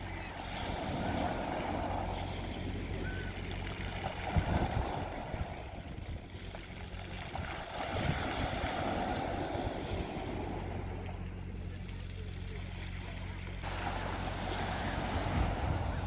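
Small waves breaking and washing up a pebble beach, the surf swelling and fading about four times, over a steady low hum.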